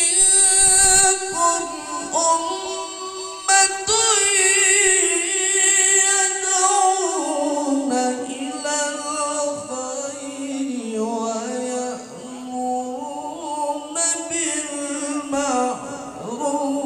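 A qari reciting the Qur'an in melodic tilawah style, amplified through a microphone and loudspeakers. He sings long, ornamented held notes that slide up and down in pitch. The melody sinks lower in the middle and climbs again near the end.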